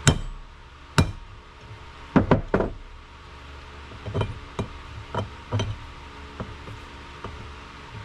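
Hammer blows tapping a part into a 1959 Ford F-100 wheel hub: about a dozen sharp knocks in irregular groups. The first two are the loudest, a quick run of four comes about two seconds in, then lighter taps follow.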